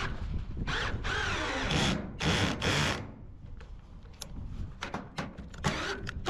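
Power drill driving self-tapping roofing screws through a metal ridge cap into the wooden battens beneath, in short runs over the first three seconds with the motor pitch rising and falling. Then quieter handling with a few light clicks.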